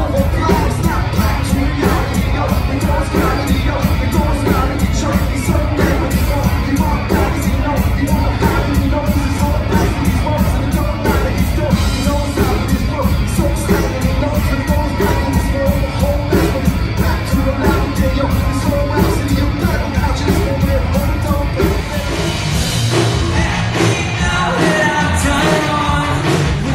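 Live rock band playing: electric guitars, bass guitar and a steady drum beat, with a lead singer. About 22 seconds in, the sound cuts abruptly to a different passage with less bass.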